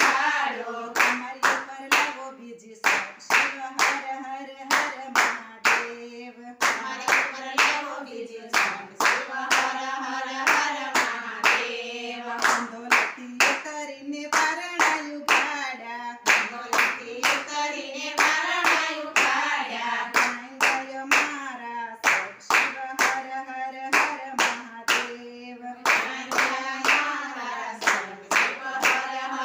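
A group of women singing a Gujarati Shiva bhajan together, keeping time with steady, evenly spaced hand claps.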